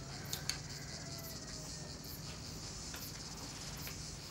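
Crickets chirping steadily over a low hum, with a couple of faint clicks about half a second in.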